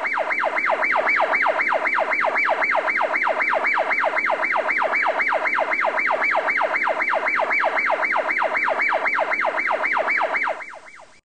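Electronic siren-like wail made of quick falling sweeps, high to low, repeating steadily about four times a second, then cutting off abruptly near the end.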